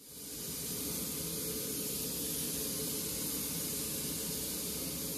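Steady hiss of steam escaping from a standing Bulleid West Country class steam locomotive, No. 34092, fading in at the start and then holding even.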